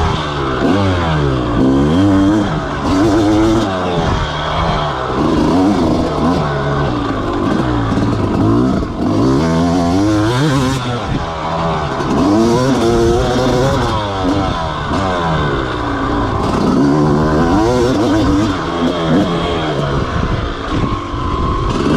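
250cc two-stroke motocross bike ridden hard, its engine revving up and dropping back again and again as the rider works the throttle and shifts around the track.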